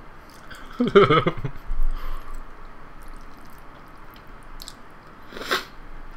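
Close-miked chewing of a mouthful of jajangmyeon (black bean sauce noodles), with faint small mouth clicks, a short hummed sound about a second in and a brief sharper mouth sound near the end.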